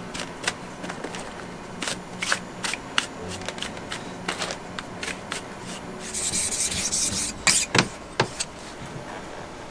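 Bristle brush and hand tools working a leather hiking boot: scattered light taps and rubbing strokes, then about six seconds in a harsh scrape lasting about a second, followed by a few sharp knocks.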